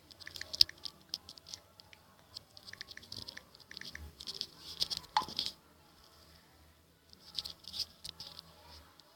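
Quick, irregular runs of light taps and clicks, like fingertips typing on a phone's touchscreen, with a short pause about two-thirds of the way through and one heavier knock just before it.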